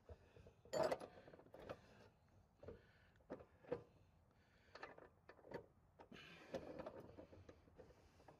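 Faint, scattered clicks and light knocks of handling, the loudest about a second in; no saw is running.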